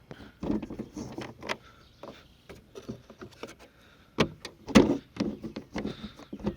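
Tools clinking and knocking as a flathead screwdriver is fetched from a car's toolkit: irregular clicks and clatters, with two louder knocks a little past the middle.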